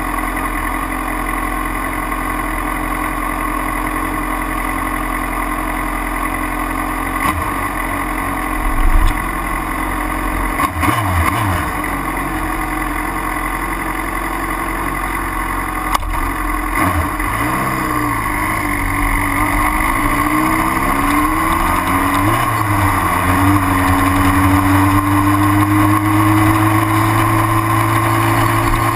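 Motorcycle engine idling steadily with the camera mounted on the bike, a couple of brief blips about a third of the way in. Past the halfway point it is revved and pulls away, the pitch then climbing steadily as the bike rolls off at low speed.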